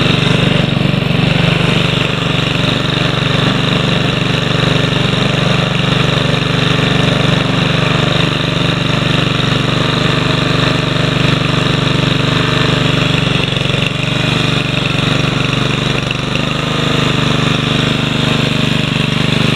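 Honda HRM215 Harmony lawn mower's four-stroke engine running steadily: a formerly seized engine, freed up, now running well.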